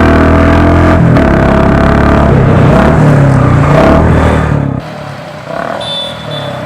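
Royal Enfield Classic 350 single-cylinder engine running loud through a Mini Punjab dholki aftermarket silencer, the exhaust note rising and falling with the throttle. About five seconds in it drops abruptly to a much quieter level.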